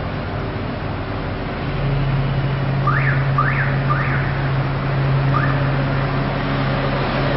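A motor vehicle engine running steadily over street traffic noise, its hum growing louder about two seconds in. Four short, quickly rising whistle-like chirps come in the middle, three close together and one a little later.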